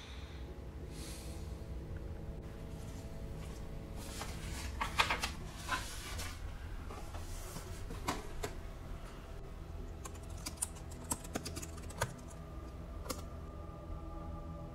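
Typing on a laptop keyboard in two short bursts of key clicks, about four seconds in and again about ten seconds in, over a low steady drone.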